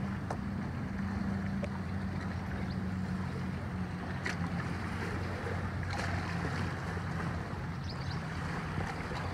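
A steady low engine hum, with wind buffeting the microphone and a few faint clicks.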